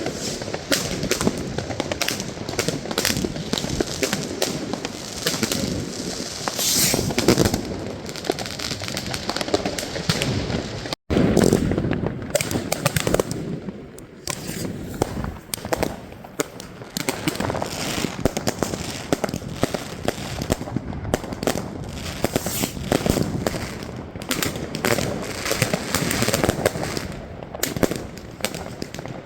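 Dense fireworks and firecrackers going off: a continuous mix of bangs and crackling, many overlapping reports each second. A brief silent break about eleven seconds in, after which it carries on as loud.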